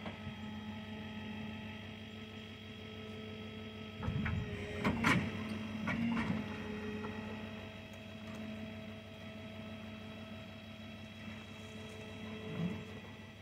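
Hydraulic tilt-bed shed trailer running with a steady machine hum as the tilted shed is lowered level onto the bed, with several knocks and clunks about four to six seconds in as it settles.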